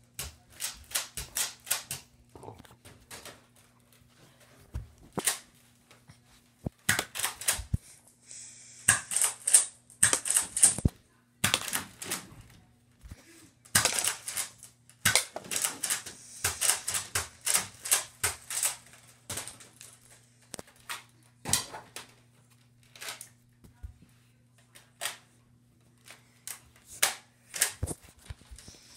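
Many sharp clicks and clacks in irregular clusters, over a faint steady hum.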